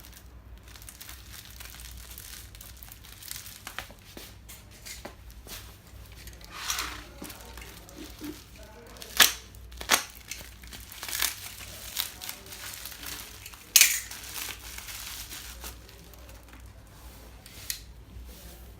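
Plastic wrapping crinkling and rustling as a replacement washing machine motor is handled, with several sharp clicks and knocks in between, the loudest about nine and fourteen seconds in.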